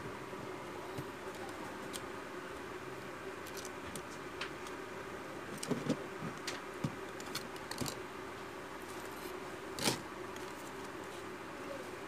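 Scattered small clicks and taps of a Nokia 2 phone's plastic housing parts being handled and pressed into place, a cluster of them in the middle and one louder click about ten seconds in, over a steady low hiss.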